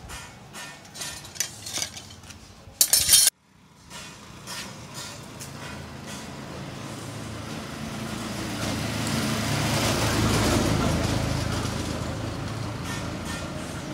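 Light clicks and clinks as a raw split pig carcass is handled on a tiled table, a short loud burst that cuts off abruptly about three seconds in, then a passing vehicle whose noise swells and fades over several seconds.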